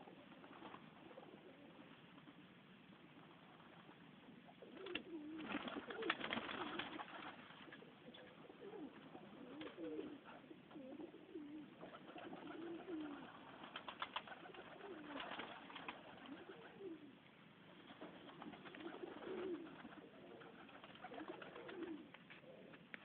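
Serbian Highflyer pigeons cooing, low wavering calls repeating again and again from about five seconds in, with a few sharp taps among them.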